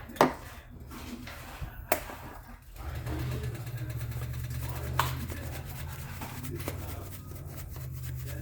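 Black pepper being ground into the pot: a steady low grinding sets in about three seconds in, after a few sharp clicks.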